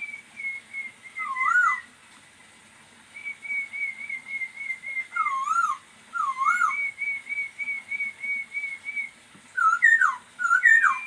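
Poksay Hongkong (masked laughingthrush) singing in full voice: runs of quick, evenly repeated whistled notes, about four a second, broken by louder swooping, wavering whistles, with a short pause a couple of seconds in.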